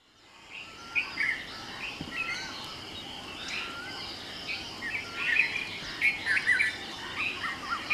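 Birds chirping and calling over a faint steady outdoor hiss, fading in from silence at the start, with many short chirps and repeated wavy warbling notes.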